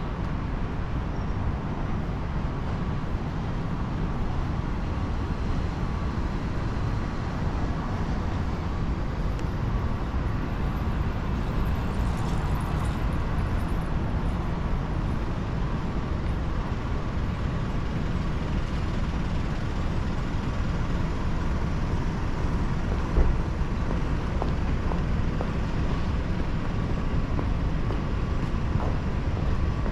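City street ambience: steady road traffic noise from passing cars and buses, with a faint steady tone and one short knock partway through.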